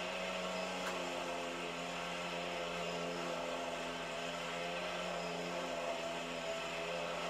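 Small children's quad bike engine running at a steady low speed, played back through a TV speaker.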